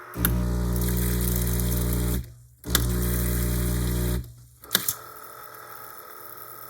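Espresso machine pump buzzing in two runs of about two seconds and one and a half seconds, with a short gap between, followed by a couple of sharp clicks.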